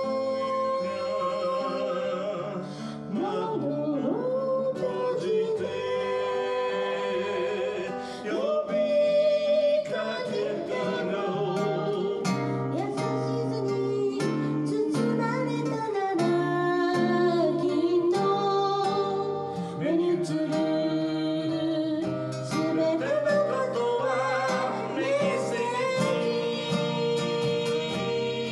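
A man singing a folk song while strumming and picking an acoustic guitar.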